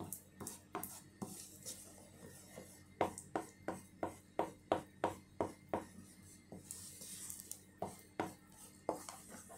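A utensil stirring thick pancake batter in a ceramic bowl, knocking and scraping against the bowl's side at about three strokes a second, most steadily in the middle of the stretch.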